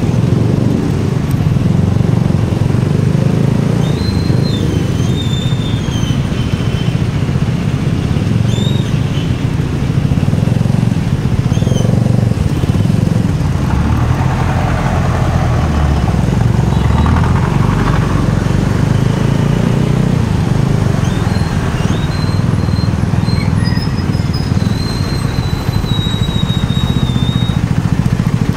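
Motorcycle engine running steadily with a continuous low sound, and a louder noisy swell from about halfway through that lasts a few seconds. Faint, thin, high squeaks come and go.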